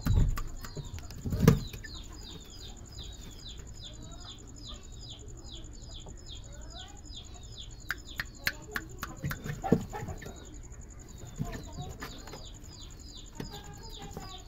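A bird chirping steadily: a short, high, falling chirp about three times a second, over and over. Two heavy thumps come in the first two seconds, and a run of sharp clicks and knocks around the middle.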